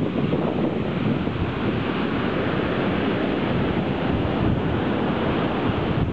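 Ocean surf breaking and washing up the shore in a steady rush, with wind buffeting the microphone.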